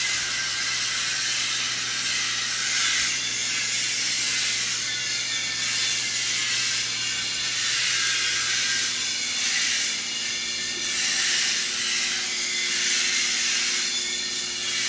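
Welding arc crackling steadily during pipe welding, with a low steady hum beneath it.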